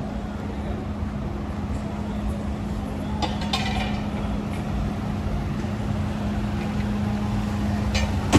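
Street traffic ambience: a car engine running nearby with a steady hum over a low rumble, and a couple of brief sharper sounds about three and a half seconds in and near the end.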